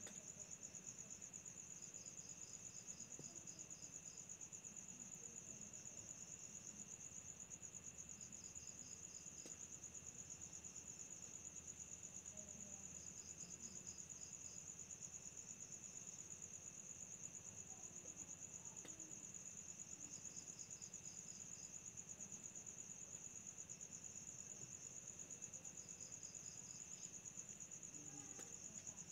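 Faint night-time insect chorus: a steady high-pitched trill, with a second insect giving a brief series of quick pulses that recurs every five to seven seconds.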